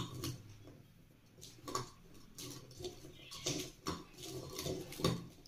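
Crisp fried semolina balls rolling and scraping on a plate as a hand tosses them in spice powder: light, irregular scratches and small taps.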